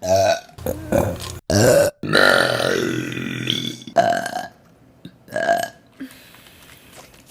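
A quick run of women's burps, about six of them, cut hard one after another. The longest, a drawn-out burp falling in pitch, starts about two seconds in, and two short ones follow near the end.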